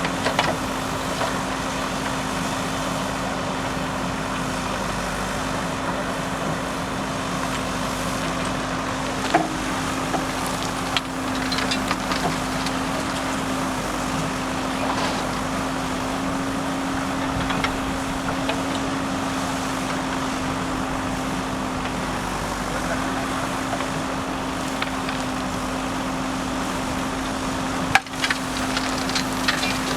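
JCB backhoe loader's diesel engine running steadily under work, with a constant hum, and a few sharp knocks, the loudest near the end.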